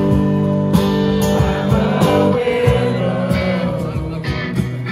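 Music with guitar and a singing voice.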